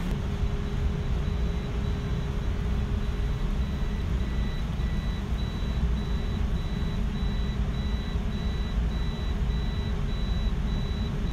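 An electronic alarm beeping in quick, even beeps, a little over two a second, over a steady low rumble of room noise. A second, lower beep sounds along with it through the middle.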